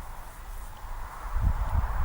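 Wind buffeting the microphone, an uneven low rumble that eases off and then builds again near the end.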